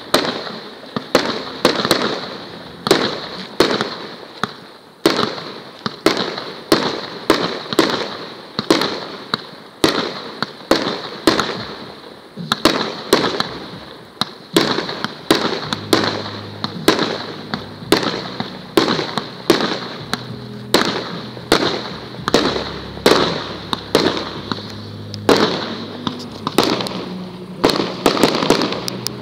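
Professional fireworks barrage: a multi-shot battery firing shells in rapid succession, a sharp bang about every half second, each trailing off.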